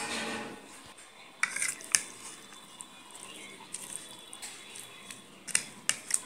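A steel spoon mixing raw chicken pieces in oil and spice marinade in a plastic bowl. Soft wet squelching, with a few sharp clicks of the spoon against the bowl, twice early and several times near the end.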